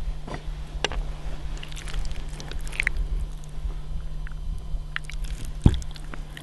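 Hands handling shot-through gelatin and meat: wet squishing, crunching and scraping with scattered small clicks, and one sharp knock about five and a half seconds in.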